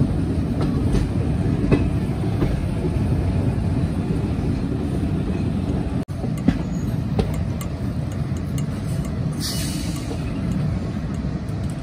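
Moving passenger train heard from an open coach door: steady rumble of wheels on rail with scattered clicks. There is a brief gap about six seconds in and a short hiss near the end.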